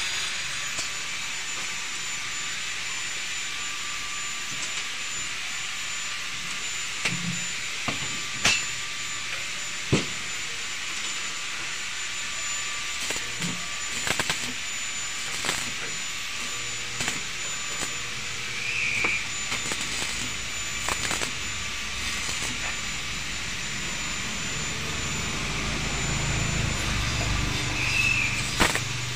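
Stick (arc) welding on steel square tubing: the electrode's arc gives a steady crackling hiss, broken by a few sharp metallic clicks and taps.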